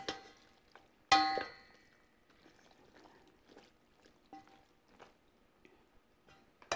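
Two wooden spoons tossing sauced rigatoni in a stainless steel pot: soft scrapes and small clicks. About a second in, one louder knock against the pot rings briefly.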